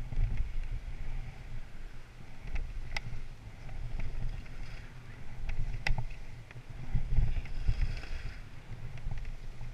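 Wind buffeting the microphone of a camera worn while skiing down a groomed piste, a fluttering low rumble, with the hiss of skis sliding and scraping on the snow, strongest about eight seconds in. A few sharp clicks, the loudest about three and six seconds in.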